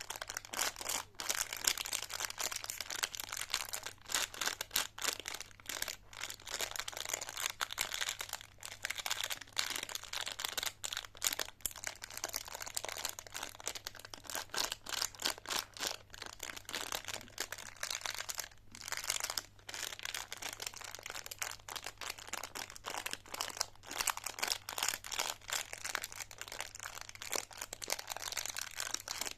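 Close-miked candy wrappers crinkling and crackling continuously, with a faint steady low hum underneath.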